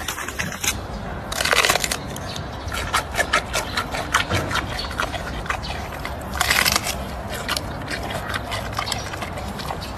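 Giant panda biting and chewing a bamboo shoot: a fast, irregular run of crisp crunches and cracks. Two louder bursts come, one about a second and a half in and one a little past the middle.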